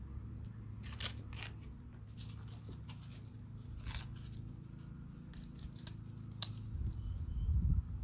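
Putty tape being pulled and torn off its roll by hand: a few short tearing and crinkling sounds. A low rumbling noise runs underneath and grows louder near the end.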